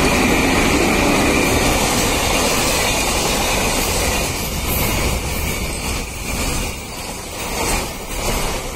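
Container freight train hauled by two electric locomotives passing close by: a loud, steady rumble and rattle of the locomotives and then the container wagons. It eases off a little about six seconds in and swells again near the end.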